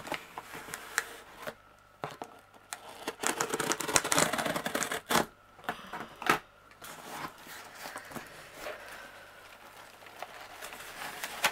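Cardboard box being opened by hand: irregular scrapes, taps and rustling of cardboard and crumpled kraft packing paper, busiest in the middle and quieter toward the end.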